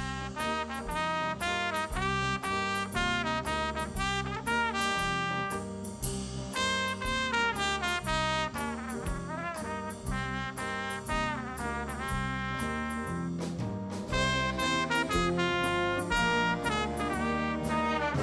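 Instrumental brass music: trumpets and trombones playing a lively tune over a steady beat.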